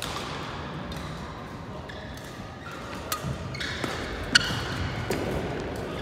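Badminton play: a few sharp racket-on-shuttlecock hits from about three seconds in, with court shoes squeaking on the court mat.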